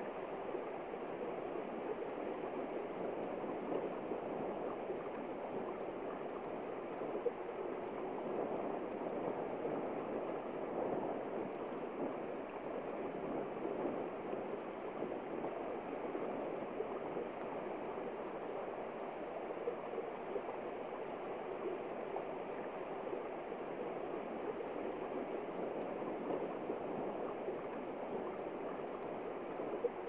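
Small shallow stream running over rocks: a steady rush of flowing water.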